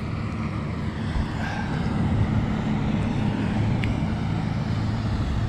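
Engine of a passing lake ferry running with a steady, low drone.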